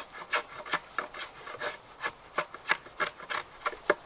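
Short scraping or rasping strokes, about three a second and slightly uneven, like a blade or rasp worked back and forth over a dry, hard surface.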